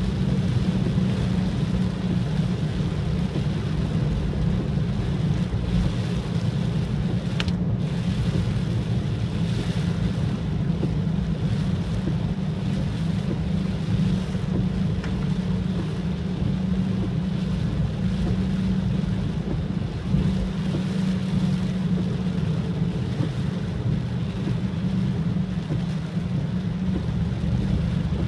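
Steady car-cabin noise while driving in the rain: a low engine and road drone with an even hiss of rain and wet tyres.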